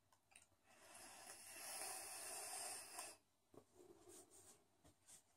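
Person vaping on a handheld vape: a soft, breathy hiss of drawn and blown breath through the device lasts about two and a half seconds and stops abruptly, followed by a few faint clicks of the device being handled.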